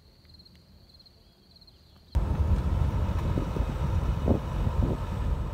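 Faint high trill of insects chirping in quick pulses at night; about two seconds in it cuts off suddenly and a loud low rumble of a moving vehicle, with wind on the microphone, takes over.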